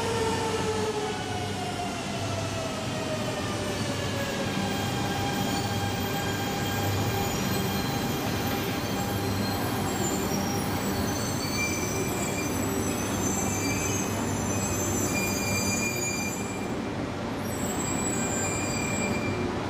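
A coupled E2 and E3 series Shinkansen train slowing at a station. Its motor whine falls in pitch over the first few seconds and then settles to a steady hum, and short high wheel squeals come and go in the second half.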